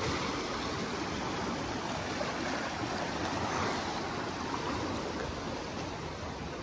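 Swollen river in flood running fast and turbulent under a bridge: a steady rushing of water.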